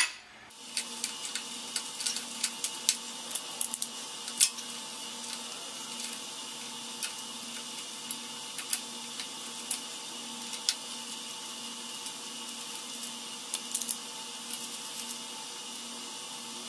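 Scattered small clicks and taps of a screwdriver and plastic cover plate as a wall electrical outlet is unscrewed and pulled from its box. The clicks are thickest in the first few seconds, come again briefly later, and sit over a faint steady hum.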